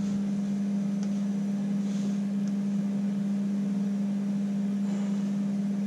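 Steady electrical hum: a single low tone, held unchanging, over a faint hiss.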